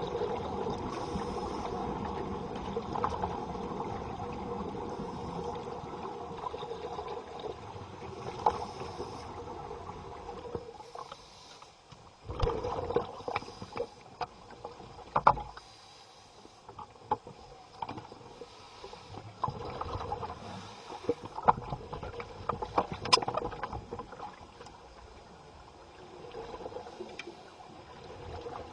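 Scuba divers breathing underwater: a steady rush of exhaled bubbles for about the first ten seconds, then quieter water with scattered clicks and knocks and a faint hiss of breaths through the regulator every two to three seconds.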